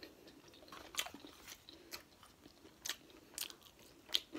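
Close-up mouth sounds of a person chewing a sushi roll: soft wet smacks and small crunchy clicks at irregular intervals, about one every half second.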